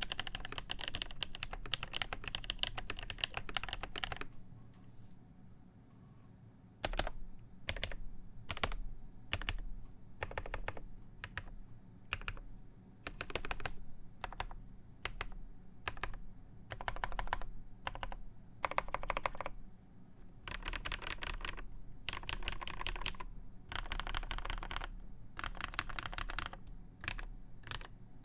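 Cherry G80-1813 (Dolch PAC) mechanical keyboard being typed on, with lubed Nolive switches on a plateless PCB under original Cherry Dolch keycaps. A fast run of keystrokes, then a pause of about three seconds a few seconds in, then keystrokes in short bursts and scattered single presses.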